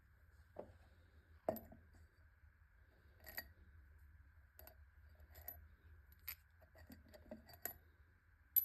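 Light metallic clinks of small metal pieces being handled or set down, about eight separate taps spread irregularly, over a faint steady high-pitched hum.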